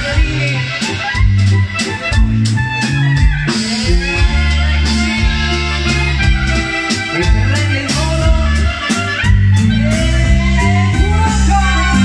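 Live dance band music: clarinet and accordion playing a tune over a keyboard backing with a steady beat and bass line.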